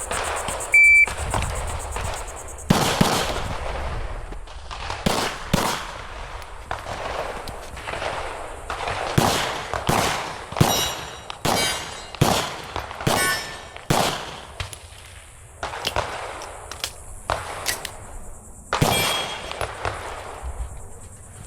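A shot timer gives one short electronic start beep, then a pistol fires a long string of shots at an uneven pace, with short pauses between bursts. Several shots are followed by a brief metallic ring from steel targets being hit.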